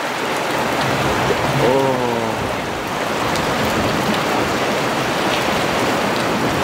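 Steady rush of rain and fast, swollen floodwater churning around a boat's hull against the river wall. About two seconds in there is a short, falling voice-like call.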